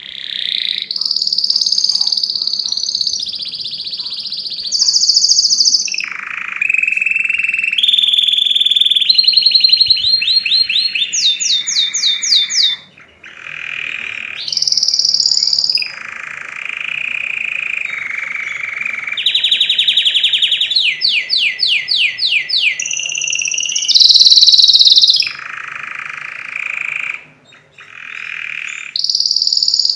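Domestic canary singing a loud, continuous song of trilled phrases, each held for a second or two before switching to a new pitch, some trilling rapidly and evenly. It breaks off briefly twice.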